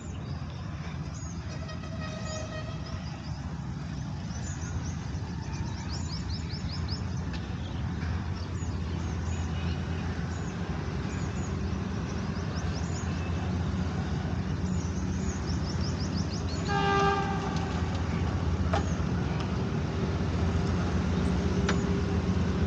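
ZCU diesel-electric locomotive approaching at the head of an oil tanker train, its engine a steady low hum that grows slowly louder as it nears. It sounds its horn faintly about two seconds in and again, louder and briefly, about seventeen seconds in.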